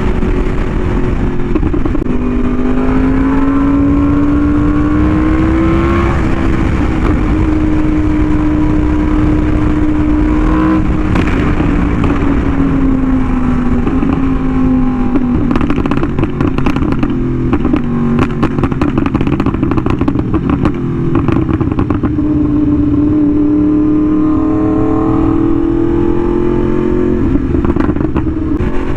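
Yamaha R1M's crossplane inline-four through an SC Project exhaust, riding along with its pitch rising, holding and falling as the speed changes, including a drop about a second and a half in. A run of sharp clicks comes about halfway through.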